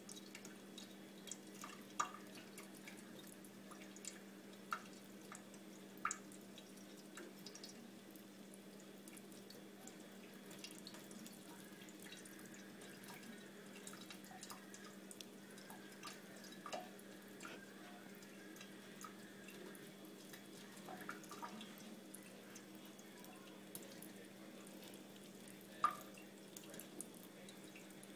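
Faint thin trickle of tap water falling from a kitchen faucet into a stainless steel sink, with scattered sharp drips and splashes. The loudest splash comes near the end. A steady low hum runs underneath.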